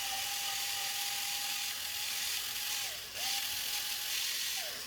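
Small electric screwdriver with a Torx T15 bit running steadily as it backs out a screw. Its motor winds down and stops about three seconds in, starts again a moment later, and winds down once more near the end.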